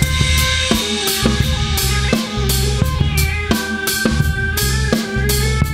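Industrial rock music, instrumental: a driving drum-kit beat of bass drum and snare hits at an even pace over pulsing synth bass notes.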